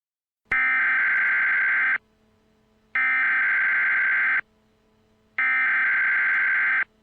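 Emergency Alert System SAME header: three bursts of digital data tones, each about a second and a half long with about a second between them, the coded header that opens an emergency alert broadcast.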